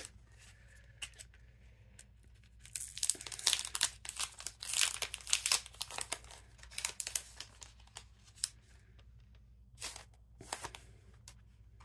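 Paper-crafting materials being handled: irregular bursts of crinkling and tearing-like rustles, densest through the middle and again briefly near the end.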